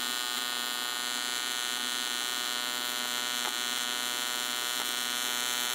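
AC TIG welding arc on aluminum buzzing steadily. A pointed 1/16-inch tungsten is pushed to about 120 amps, too much for it, and is losing its tip.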